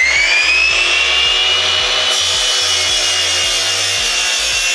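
Sliding miter saw's motor whining as it winds up to full speed, its pitch rising and then holding steady. From about two seconds in the blade is pushed through a wooden board and a sawing hiss is added.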